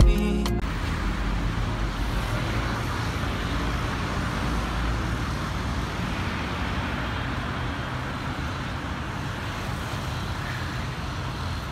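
Steady road traffic noise: a continuous hum and rumble of passing vehicles. A song cuts off just as it begins.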